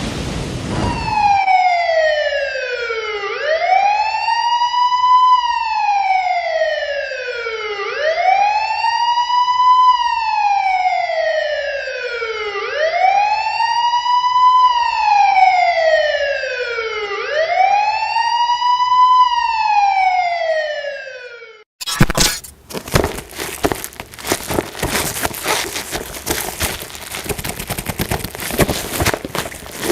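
Electronic siren wailing in slow cycles: each cycle is a long falling glide in pitch followed by a quick rise back up, four cycles over about twenty seconds. It cuts off suddenly and is followed by dense crackling and clicking.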